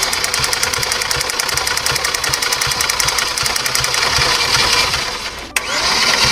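Yunnei diesel engine being turned over on its starter motor without firing, with a fuel line nut loosened to bleed air from the fuel system. It makes a fast, even rhythm, pauses briefly about five and a half seconds in, then cranks again.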